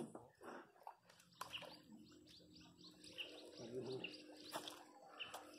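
Small birds chirping faintly in the background, a long series of short high chirps repeating about twice a second, after a brief knock at the very start.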